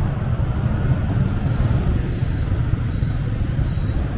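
Steady low rumble of vehicle and road traffic noise, heard while travelling along a town street.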